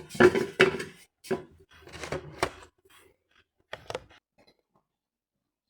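A quick series of sharp knocks and clatters, the loudest in the first second, stopping about four seconds in, then silence.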